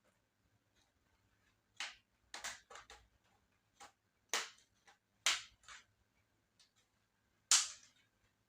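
Sharp plastic clicks and snaps from handling the laptop's case, about eight of them at irregular intervals, the loudest one near the end.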